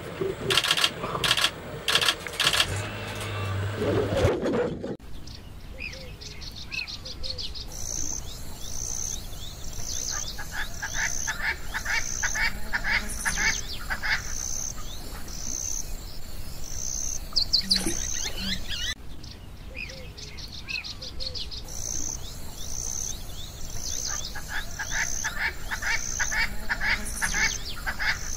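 Birds and insects chirping in a steady outdoor chorus, with one high chirp repeating about once a second over fast trilling ticks. Before that, for the first five seconds, a louder series of sharp sounds plays and then cuts off suddenly.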